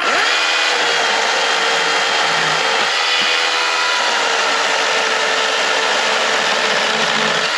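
Ryobi power tool cutting: its motor spins up quickly at the start, then runs at a steady high speed.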